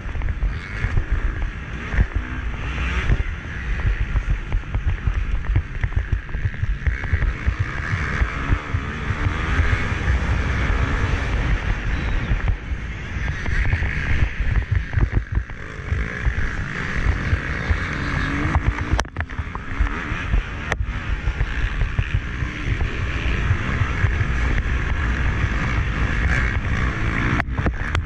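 Motocross bike engine rising and falling as the throttle is opened and closed around the track, with heavy wind buffeting on the action camera's microphone.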